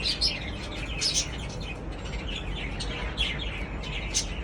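Pet parrot chirping: a run of short, high chirps, several a second, with a few louder ones about a second in and near the end.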